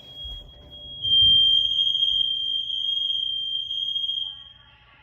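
Fire alarm sounding: one loud, steady, high-pitched tone that grows louder about a second in and breaks off briefly near the end before resuming.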